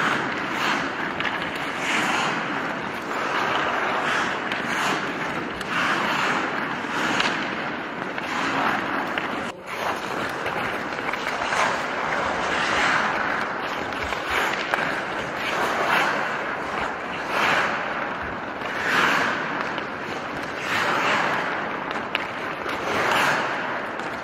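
Ice hockey skate blades carving and scraping the ice in tight turns and pivots, a hissing scrape that swells about once a second with each push.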